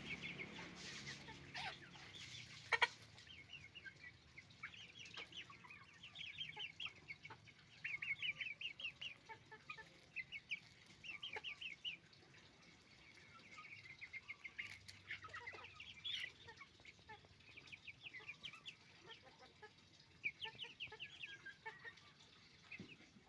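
Chickens clucking and chattering in runs of quick, short, high notes that come and go. There is one sharp knock about three seconds in.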